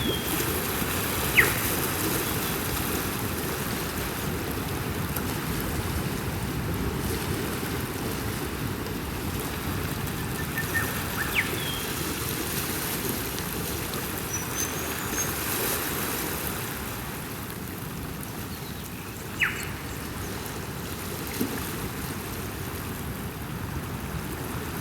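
Steady rush of ocean surf. A bird calls over it now and then: three short, sharp falling whistles, about a second in, near the middle and about three-quarters through, with a few quick faint chirps between.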